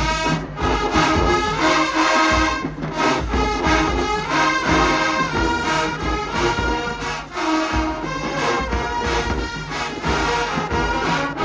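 Marching band playing: loud brass chords over drums that keep a steady beat.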